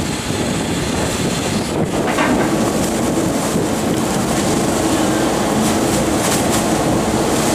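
Rotary garbage truck's packer running: the truck's engine and hydraulics make a steady mechanical noise, and a steady hum comes in about three seconds in as the rotary plate sweeps bags from the hopper. A few short rustles and knocks come near the end as a bag is thrown in.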